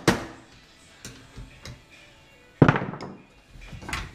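A hammer knocking on a Pontiac Fiero pop-up headlight assembly to free a stuck part. One hard blow lands right at the start, a few light taps follow about a second in, and another hard blow about two and a half seconds in rings on briefly.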